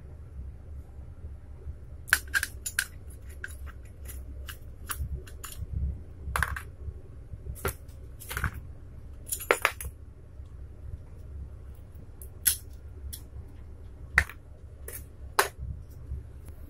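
Scattered clicks and clinks of a screwdriver, small screws and metal parts being handled while a cotton candy machine's spinner head is taken apart, over a low steady hum.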